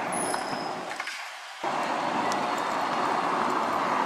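City bus engine and tyre noise as the bus drives past. About a second and a half in, the sound cuts sharply to a louder, steady engine sound from a coach standing at a bus station.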